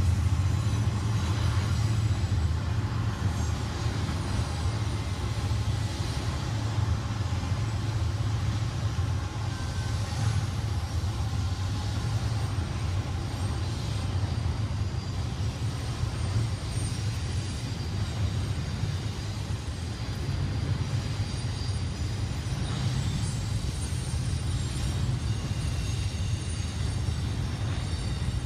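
Double-stack intermodal freight train rolling past, a steady low rumble of wheels and cars on the rails.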